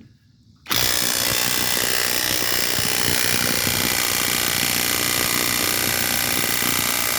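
Worx Nitro 20V brushless cordless impact wrench hammering steadily on a truck lug nut for about seven seconds, starting abruptly about a second in. The wrench is set to forward, so it is hammering in the tightening direction and the nut does not come off.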